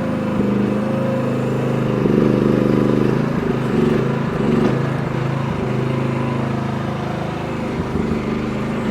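Chinese mini excavator's small engine running steadily, its note dipping and recovering several times as the machine is worked.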